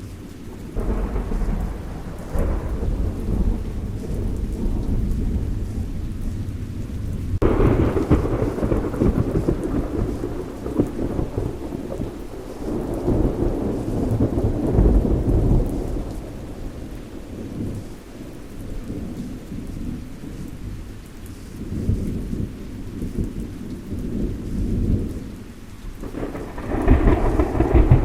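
Thunderstorm: steady rain with deep rolling thunder. The thunder swells several times and breaks in sharply about a second in, again about seven seconds in, and once more near the end.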